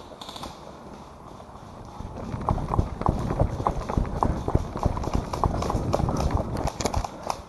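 Running footsteps on a woodland dirt path: quick, heavy strides that start about two seconds in.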